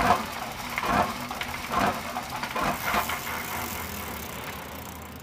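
Wheel loader's diesel engine running, with a rattling pulse about once a second; the sound fades toward the end.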